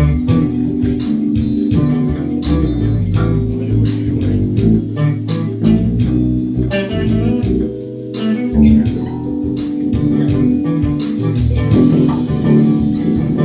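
Electric bass guitar playing a busy line of low notes with many sharp, percussive attacks.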